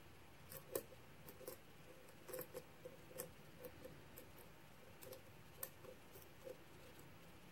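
Faint, irregular small metallic clicks of a pick working the pins of a security-pinned Russwin brass pin-tumbler cylinder held under a tension wrench, roughly one or two clicks a second, as pins are lifted and set.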